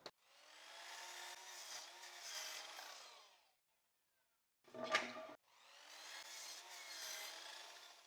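Power saw cutting through a pine board twice, heard faintly, each cut lasting about three seconds and starting with a short knock.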